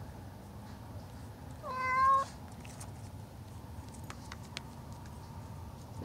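Young mule deer giving one short, mewing bleat with a slight rise in pitch, about two seconds in. A few faint clicks follow later.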